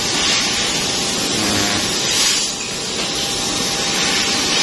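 Steady hissing, whooshing noise of a laser-cutting machine at work, even throughout with no distinct knocks or rhythm.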